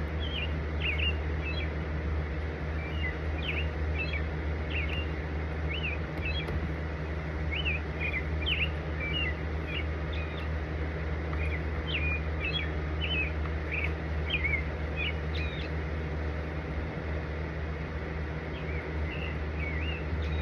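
Small birds chirping in quick, repeated short calls, thinning out after about fifteen seconds, over a steady low hum.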